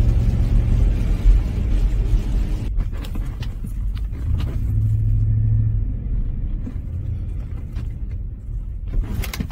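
Car interior while driving slowly on a wet road: a steady low engine and road rumble with tyre noise. The tyre noise fades after about three seconds as the car slows in the parking lot, and a few faint clicks come in the later part.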